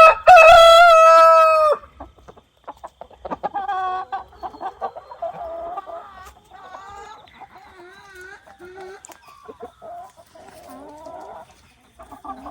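A rooster crows once, loud and held for nearly two seconds at the start, then hens keep up a softer, uneven clucking and chattering.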